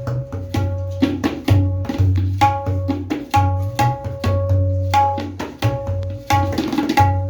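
A tabla pair played in a steady rhythm: ringing, pitched strokes on the dayan, tuned to C#, alternating with deep bass strokes on the bayan.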